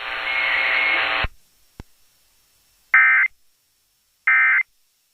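Radio hiss with a faint tone that cuts off about a second in, then two short, identical electronic data bursts of the Emergency Alert System's end-of-message (EOM) code, evenly spaced about a second apart, marking the end of the alert.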